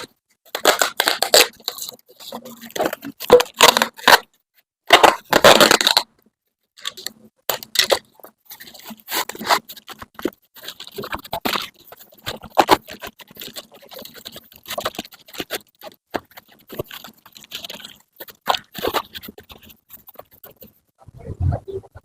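Plastic packaging being handled and torn, with crinkling and scraping in irregular bursts and short gaps between them.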